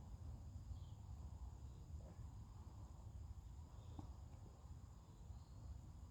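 Near silence: faint outdoor background with a low rumble and a steady high hum, and a single faint tick about four seconds in.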